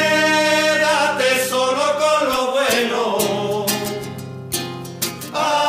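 Flamenco-pop (flamenquito) song: guitar accompaniment under a long, wavering melody with voices. The low accompaniment drops out briefly about two and a half seconds in, and a new phrase starts near the end.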